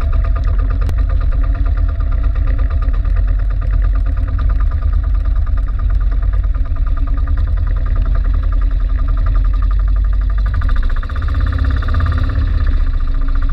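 Engine of a motorized outrigger fishing boat running steadily under way, a loud, fast, even pulse with a low hum.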